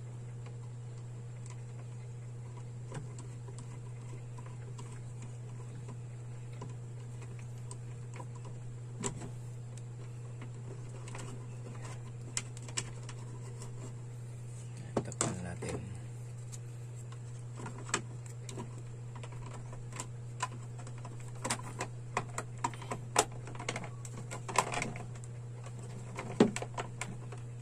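Plastic clicks and taps from a wall switch and its cover plate being handled and snapped into a surface-mounted switch box. The clicks are sparse at first and come thick and fast in the second half, over a steady low hum.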